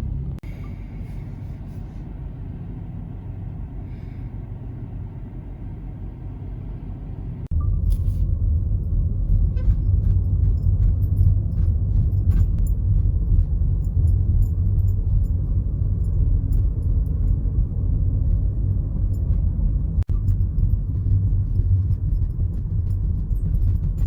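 Low, steady rumble of a car driving, heard from inside the vehicle. About seven and a half seconds in it turns suddenly louder and heavier, with scattered light clicks over it.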